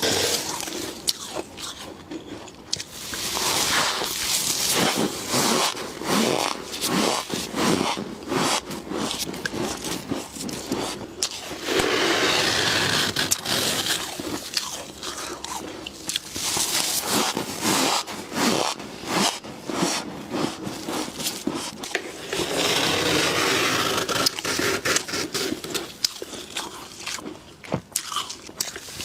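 Humidifier frost being scraped loose and bitten, with crisp crunching and chewing that come in several rounds of rasping scrapes and dense clicks.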